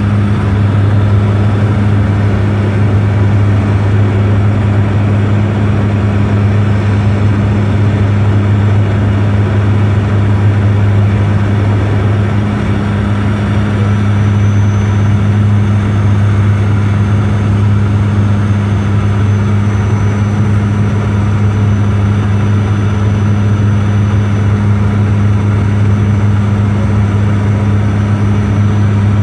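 Steady airliner cabin noise during the descent to land: engine noise and rushing air with a strong low hum, and a faint high whine coming in about halfway through.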